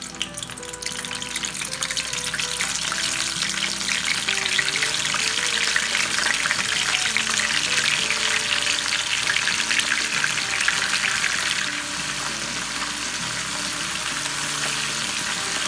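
Batter-coated shrimp deep-frying in hot oil in a wok: a dense crackling sizzle that builds over the first couple of seconds after they go in and eases a little about three-quarters through.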